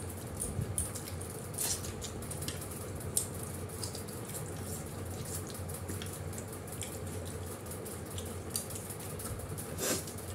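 People eating with their fingers: wet chewing and lip-smacking clicks scattered throughout, over a steady low hum.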